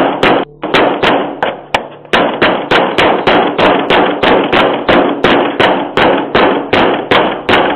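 A fist pounding hard and fast on a front door, about three to four blows a second with two short breaks, heard through a doorbell camera's microphone.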